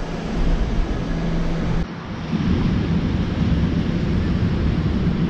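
New York City subway train running past the platform, a low rumble with a steady hum, cut off suddenly about two seconds in. It gives way to a steady rushing street noise, like wind on the microphone.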